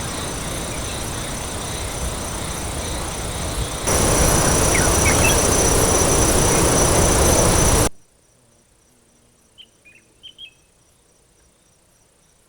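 Loud steady rushing noise with a high, steady insect drone over it, growing louder about four seconds in and cutting off sharply about eight seconds in, leaving a faint background with a few brief bird chirps.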